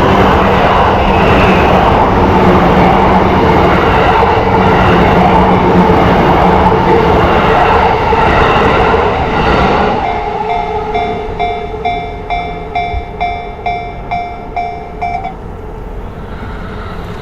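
A Yamanote Line train passes close by with a loud, steady rumble for about ten seconds. As it clears, the level crossing's warning bell rings out in an even ding-ding at about two strokes a second, then stops after about five seconds as the crossing clears.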